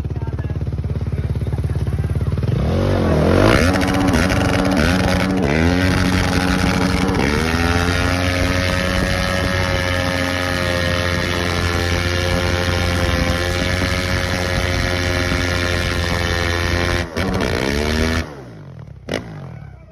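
Yamaha YFZ450R race quad's single-cylinder four-stroke engine revving hard in a burnout, the rear tyre spinning. It is blipped up and down several times, then held at high revs for about ten seconds, and drops off suddenly near the end, with one more short rev just after.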